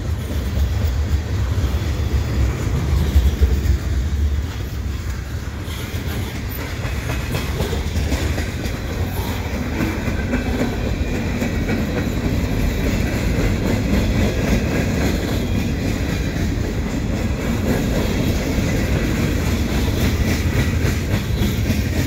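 Freight cars rolling past at speed: a steady low rumble of steel wheels on the rails, with irregular clicks as the wheels cross the rail joints.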